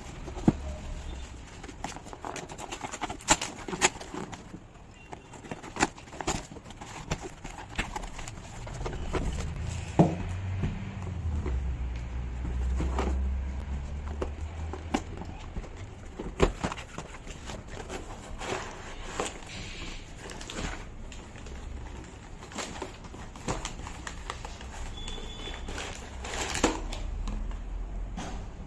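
Box and packaging being handled: scattered sharp clicks, taps and knocks, with a low rumble for a few seconds around the middle.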